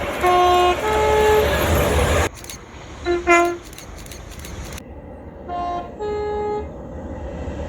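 Train two-tone horn sounding three times, each time a lower note followed by a higher one: a long pair first, then a short blast, then a brief pair near the end. A low engine rumble runs underneath, and the background changes abruptly between the soundings.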